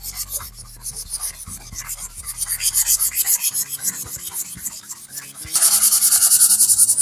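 Fine-grit sandpaper (up to 320 grit) rubbing on beech and fir boards in quick back-and-forth strokes, a pulsing scratchy hiss that gets louder near the end.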